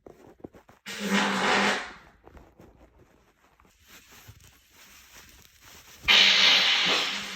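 Two loud farts about five seconds apart, each lasting about a second: a hissing blast over a steady low buzz.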